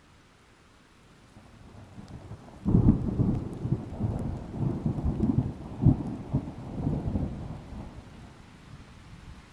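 A thunderclap: a quiet build-up of distant rumble, then a sudden loud crack about three seconds in that rolls on as a deep, pulsing rumble for several seconds before fading, over a faint hiss of rain.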